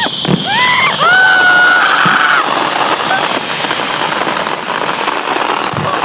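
Fireworks going off close by: a couple of sharp bangs at the start, high rising shrieks about a second in, then a dense, steady crackling from crackle-effect shells.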